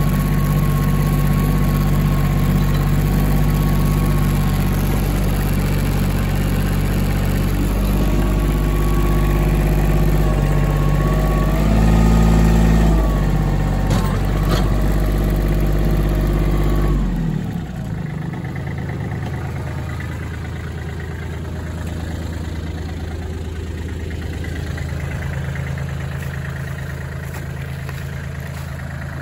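Kubota L3400 compact tractor's diesel engine running steadily, heard up close from the operator's seat, with a brief rise in revs about twelve seconds in. At about seventeen seconds it drops to a quieter, steady running, heard from beside the tractor as it drives.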